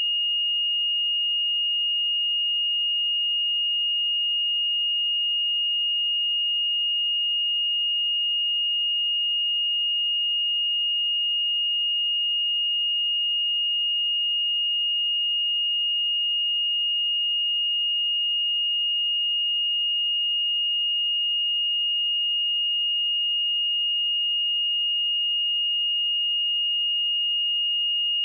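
A pure 2852 Hz sine-wave test tone, a single high-pitched steady whistle-like note held without change.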